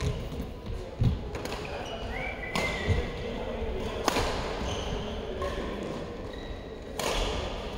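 Badminton rally: sharp racket strikes on the shuttlecock, several seconds apart, with sneaker squeaks and footfalls on the court, echoing in a large sports hall.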